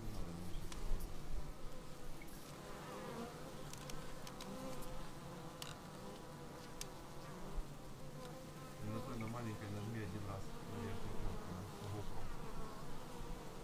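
Honeybees buzzing at a hive entrance, a dense hum from many bees flying in and crawling on the landing board, swelling and easing as bees pass close by. A few brief ticks sound around the middle.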